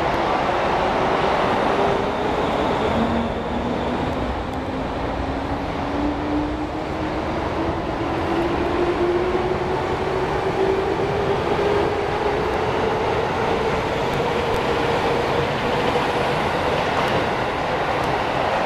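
JR 205 series electric commuter train pulling away from the platform, wheels rumbling on the rails while the motor whine climbs steadily in pitch as it gathers speed.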